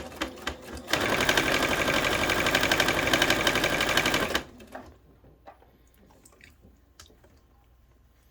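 Baby Lock sewing machine running at speed for about three and a half seconds, stitching a seam, then stopping abruptly; a few separate clicks come before it and faint ticks after it.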